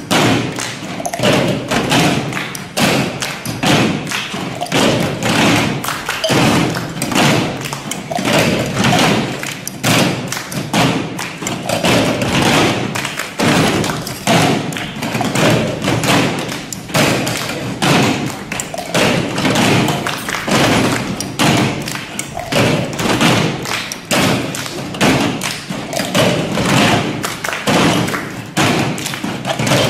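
Percussion ensemble playing a cup-and-clapping piece: many cups knocked and tapped on a tabletop together with hand claps, in a steady driving rhythm.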